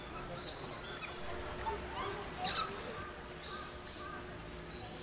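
Small birds chirping in short, high, arching calls, with a few held high notes later on. A single sharp click sounds about two and a half seconds in.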